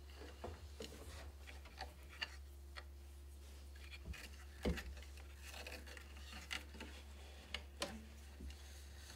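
Warp threads and the wooden parts of a vertical loom being handled while it is warped: scattered light clicks and taps with soft rubbing, the loudest tap almost five seconds in, over a steady low hum.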